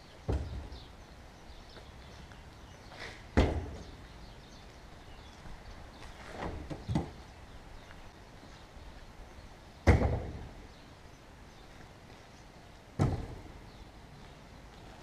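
Chainsaws set down one after another on a truck's metal bed: sharp thunks about every three seconds, the third a quick double knock, each ringing briefly.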